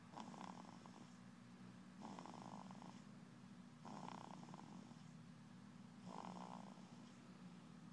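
Faint, rhythmic snoring: a fluttering snore about every two seconds, four in a row, over a steady low hum.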